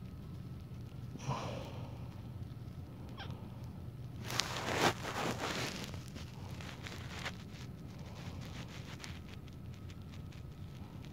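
Newborn Pekingese puppy giving a couple of faint, brief squeaks, one a quick falling squeak about three seconds in, over a steady low hum. A stretch of soft rustling comes around the middle.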